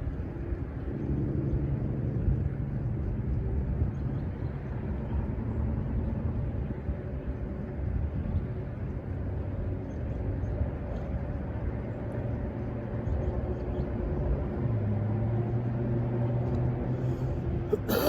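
Low, steady engine drone whose pitch shifts a few times, with a sharp knock at the very end.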